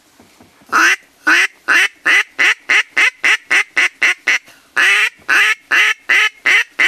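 Buck Gardner Firecracker double-reed duck call, cocobolo wood and polycarbonate, blown in a run of loud hen-mallard quacks. About a second in, a dozen quacks start, growing shorter and quicker. After a short break a second run begins with a long quack and goes on at a steady quick pace.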